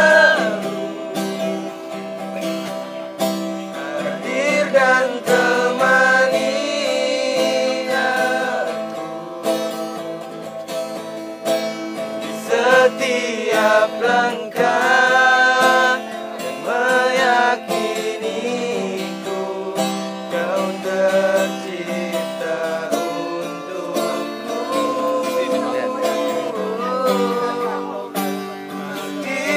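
A man singing to his own acoustic guitar accompaniment, a wavering melody with long held notes over steady guitar chords.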